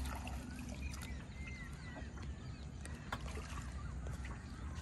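Quiet lakeside sound from a small canoe: a fisherman handling a wet gill net over the side gives a few light knocks. A low wind rumble runs under it, with faint bird calls throughout.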